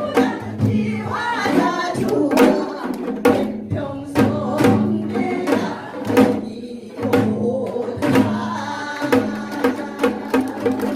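A song sung to music, with sharp drum strokes of janggu (Korean hourglass drum) beating the rhythm throughout.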